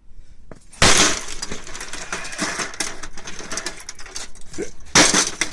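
HP LaserJet 1300 laser printer's plastic casing being worked open with hand tools. A sudden loud crack comes about a second in, then a steady run of clattering, scraping and clicks, and another loud crack near the end.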